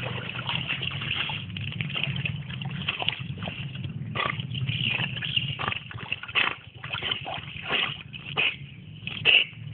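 Pool water splashing and sloshing as a rottweiler swims, with a run of separate, irregular splashes in the second half, over a steady low hum.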